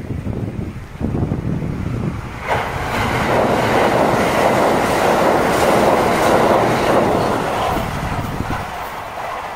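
A Kintetsu limited express electric train passing close by at speed, over wind buffeting the microphone. The wheel-and-rail noise rises sharply about two and a half seconds in, stays loud through the middle and fades near the end.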